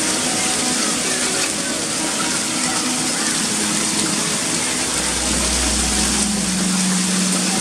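Heavy hail and rain pelting clay tile roofs and the balcony, a loud, steady, dense clatter and hiss. A low rumble comes in about five seconds in and fades a second and a half later.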